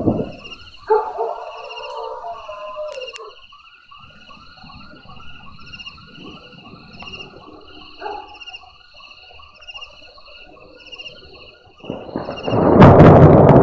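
A dog howls and barks about a second in, followed by a run of short repeated calls, over a steady high chirping. Near the end, loud thunder breaks in.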